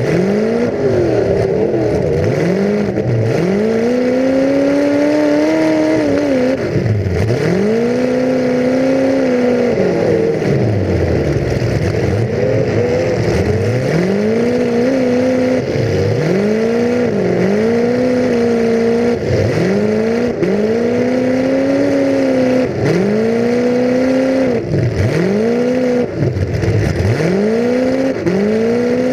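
A full-size demolition derby car's engine, heard from on board, revving up and dropping back again and again, roughly every two seconds.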